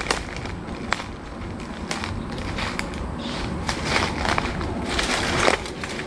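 Footsteps crunching through dry bamboo leaf litter, with irregular crackles and rustles.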